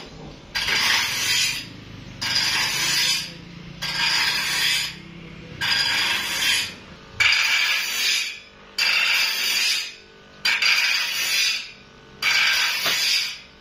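Small electric grinder grinding a steel bandsaw blade held by hand, in eight even passes of scraping grind, each over a second long and about one every 1.7 seconds, with the motor humming between them.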